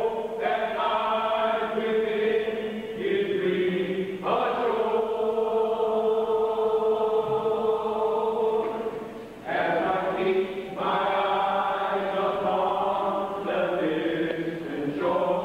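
Church choir singing slow, sustained phrases in harmony. A chord is held steady for about five seconds in the middle, with short breaks between phrases.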